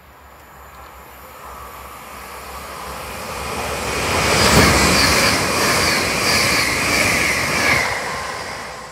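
Hitachi Intercity Express Train passing through the station at speed: a rising rush as it approaches, loudest for about three seconds as the carriages go by with a regular wheel beat of about two a second, then fading quickly near the end.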